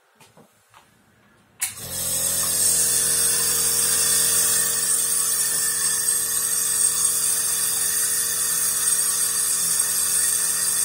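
Home nebulizer switched on with a click about a second and a half in, then running with a steady buzzing hum and a high hiss as it atomizes the liquid medicine for inhalation.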